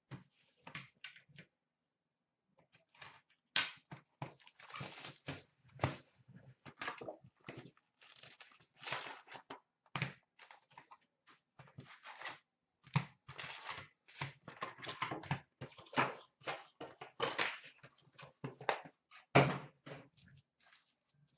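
A cardboard box of hockey trading card packs being handled and opened, and its wrapped packs taken out and set down: irregular scrapes, taps and rustles, with one louder knock near the end.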